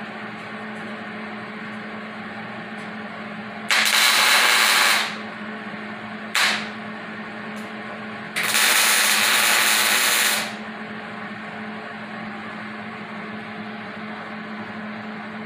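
MIG welder arc crackling in three bursts while roll-cage mounting pads are welded in: a burst of about a second and a half about four seconds in, a short tack a little later, then a longer bead of about two seconds. A steady low hum runs underneath.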